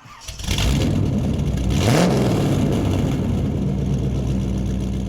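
Car engine running loudly, revving once with a rise in pitch about two seconds in, then holding a steady pitch.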